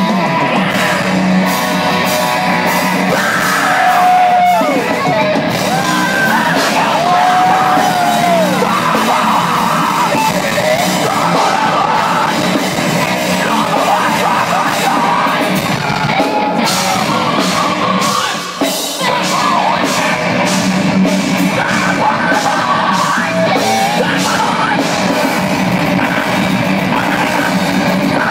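Live heavy metal band playing loud, with distorted guitars, fast drums and yelled vocals.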